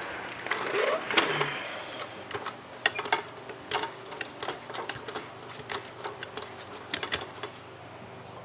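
Hydraulic floor jack being pumped to raise the car: a run of irregular sharp metal clicks and light clanks, a few a second.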